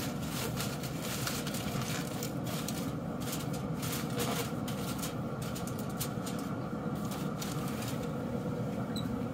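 Aluminium foil crinkling and crackling in short bursts as it is folded and crimped back over a pan of brisket, over a steady low rumble.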